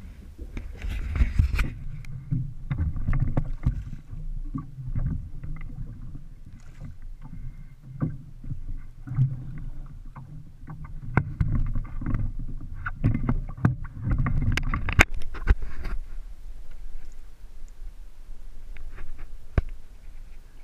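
Water slapping against a small skiff's hull, with a low rumble and scattered knocks and clatter on the boat, quieter and sparser after about sixteen seconds.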